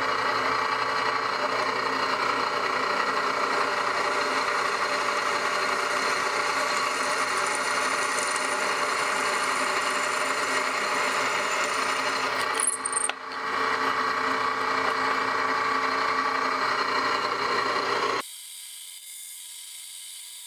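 Drill press running with a twist bit drilling holes through a bar of 1084 high-carbon steel, a steady machine whine with the bit cutting. It breaks off briefly about two-thirds of the way through, and near the end it drops suddenly to a much quieter steady hum.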